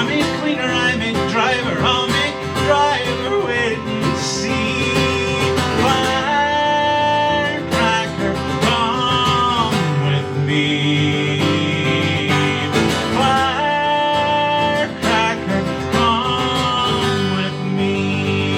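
Acoustic guitar playing an instrumental break in a folk song, with a held, bending melody line above the strummed accompaniment.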